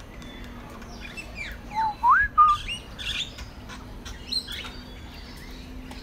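Several birds chirping and calling together, short quick notes sweeping up and down, with one louder whistled note that rises and falls about two seconds in, over a faint steady hum.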